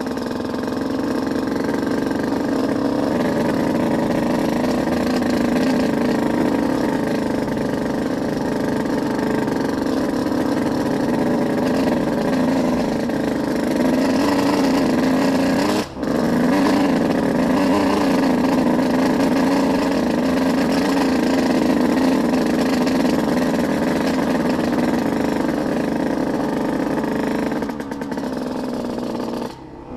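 Off-road vehicle engine running steadily, with a short sharp break about halfway through and another brief dip near the end.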